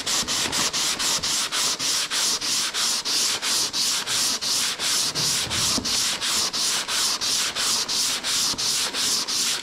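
Fibre body filler on a car panel being sanded by hand with a sanding block, in quick, even back-and-forth strokes of about four a second, giving a steady scratchy rasp. The sanding is knocking down a high spot in the filler.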